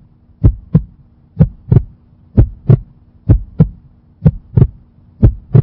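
Heartbeat sound effect: six paired low thumps, lub-dub, about once a second, over a faint steady low hum.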